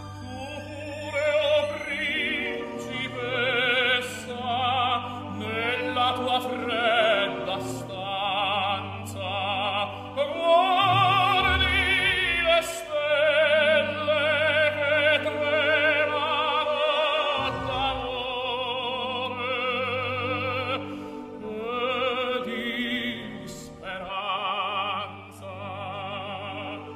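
Operatic singing with a strong vibrato on long held notes, over an orchestral accompaniment.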